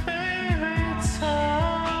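A slow song's instrumental outro: a held, gliding melody line over a deep kick drum that keeps a steady beat.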